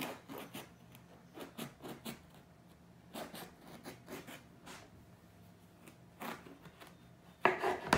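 Kitchen knife sawing lengthwise through a whole eggplant: a run of short, irregular scraping and crunching strokes, with a louder knock near the end as the blade comes down onto the wooden cutting board.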